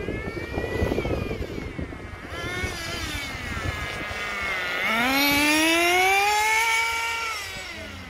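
Small remote-control model car motor whining, its pitch dropping and then climbing steadily as it speeds up, loudest near the end before it fades.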